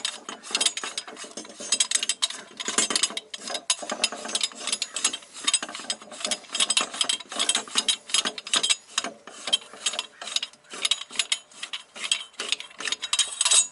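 Ratchet wrench clicking rapidly and unevenly as it is worked on the coilover's mounting nut.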